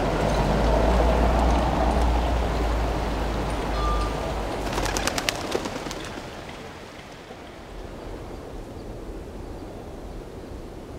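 Pigeons cooing over city ambience. A low rumble fills the first half, a quick run of clicks comes about five seconds in, and the rest is quieter.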